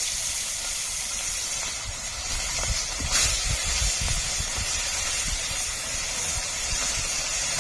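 Pieces of marinated sea fish sizzling steadily in hot oil in a kadai, just laid in to fry, with a brief louder flare of sizzle about three seconds in.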